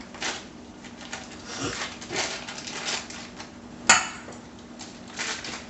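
A utensil scraping and tapping in a metal mixing bowl as softened cream cheese is put in with the shredded cheese, in a series of short scrapes with one sharp clink about four seconds in.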